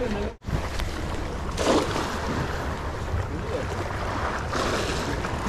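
Wind on the microphone over choppy sea water, with waves washing. It briefly cuts out just after the start and swells louder twice.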